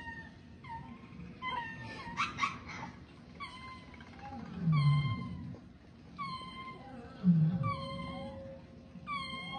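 Animal calls: a string of short, high, chirping calls about once a second, with three louder, low calls that fall in pitch.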